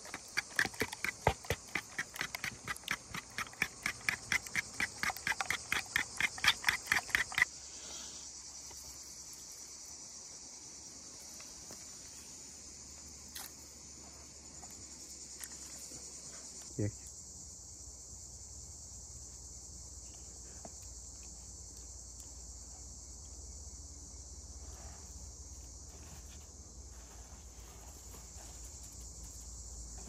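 A spoon beating eggs against a wooden bowl, about four quick strokes a second for the first seven seconds, over a steady chirring of insects. After that only the insects go on, with a single brief knock about halfway through.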